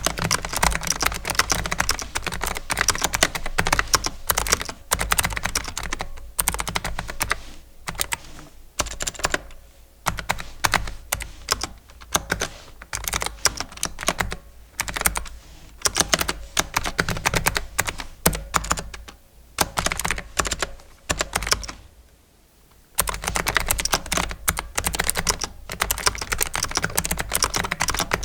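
AZIO Retro Classic mechanical keyboard being typed on in fast, continuous runs of key clicks, with a short pause late on. The clacks are hollow and pingy, from switches the owner thinks are Kailh Typelit. Low thuds from the typing come through the desk-mounted microphone arm.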